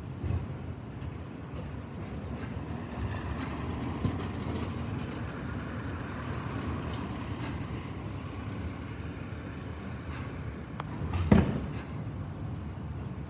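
Garbage truck's engine running steadily down the street, with one loud thump about eleven seconds in.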